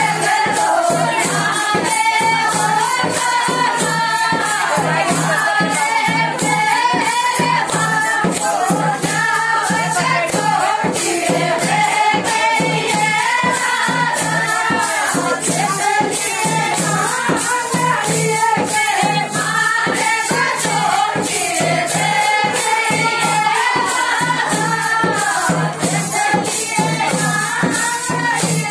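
Desi Rajasthani folk song accompanying the dance: singing voices over a fast, steady beat of jingling, tambourine-like percussion.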